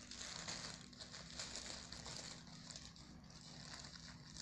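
Faint rustling and crinkling of a thin plastic gift bag being handled and pulled open, a little brighter near the end.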